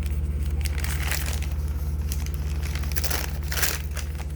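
A bag crinkling and rustling as it is torn open and handled, with the loudest crinkles near the end, over a steady low hum.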